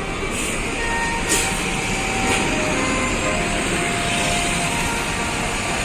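Steady street-traffic noise dominated by a large vehicle's engine running close by, most likely a passing tour bus.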